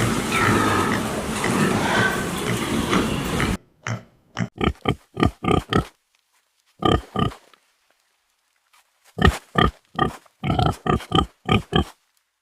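A dense, noisy clamour for the first few seconds, then a pig grunting: quick runs of short, separate grunts, several a second, broken by pauses.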